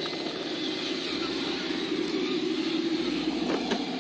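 Traxxas RC crawler's electric motor and gearbox whining steadily as it drives and climbs over loose dirt, a little louder in the second half, with a few light knocks near the end.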